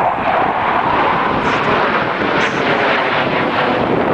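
Four U.S. Air Force Thunderbirds F-16 Fighting Falcon jets flying over in close formation: a loud, steady jet roar.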